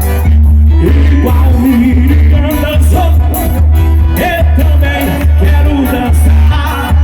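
Loud live forró band music with singing and a heavy, steady bass.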